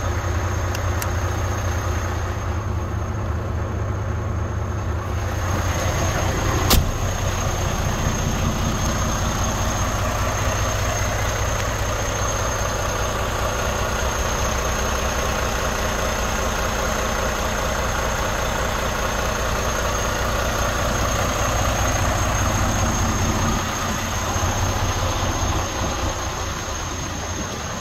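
Heavy diesel truck engine idling steadily, with a thin steady high whistle over it. A single sharp click sounds about 7 seconds in.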